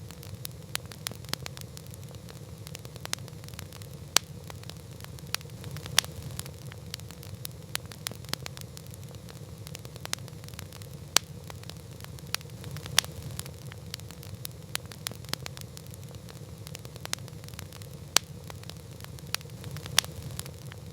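Campfire crackling: irregular sharp pops and snaps, a few of them louder, over a steady low rumble.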